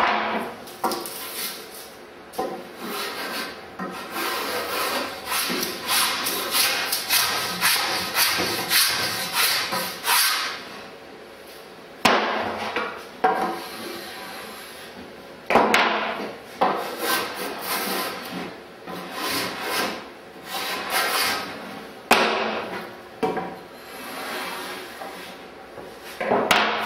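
Small block plane shaving the edge of a wooden paddle blank in repeated rasping strokes, about two a second at first and more scattered later, with a few sharper knocks of wood.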